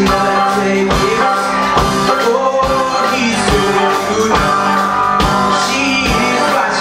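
A live rock band playing: a young male singer singing over electric guitar, bass guitar and a drum kit keeping a steady beat.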